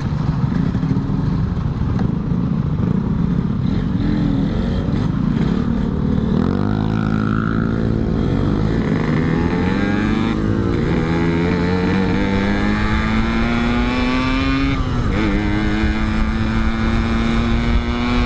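Yamaha RX-King's single-cylinder two-stroke engine pulling hard under way, its pitch climbing in each gear. The pitch drops back at gear changes, one about ten seconds in and another about fifteen.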